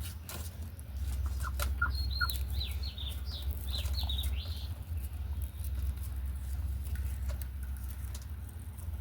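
Budgies chirping: a short burst of quick, falling high notes from about one and a half to five seconds in. Scattered light clicks and taps and a steady low hum run under it.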